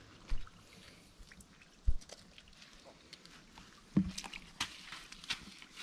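Footsteps in rubber boots through mud and wet leaf litter along a shallow creek: scattered crackles and squelches, with three sharp low thumps about a third of a second, two seconds and four seconds in.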